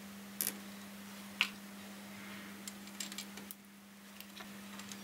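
Small metallic clicks and clinks of the spindle nut and parts being handled at a drum-brake wheel hub: one about half a second in, a sharper one about a second and a half in, and a quick cluster around three seconds. A steady low hum sits underneath.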